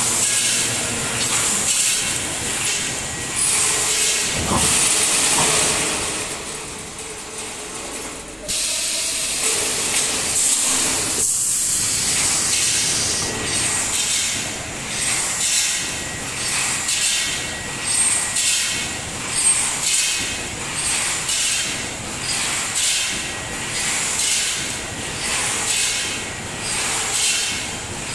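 Panel mesh welding line running: a hiss of compressed air from its pneumatic cylinders, pulsing evenly about once a second with the machine's cycle.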